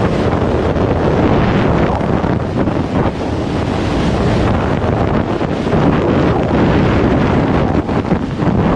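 Loud, steady rush of freefall wind buffeting a skydiver's camera microphone.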